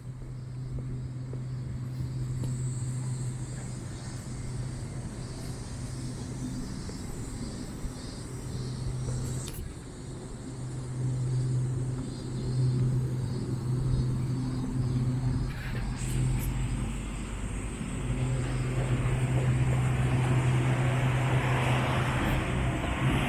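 Road traffic: a steady low engine hum from vehicles, broken briefly a few times, with a passing vehicle growing louder over the last few seconds.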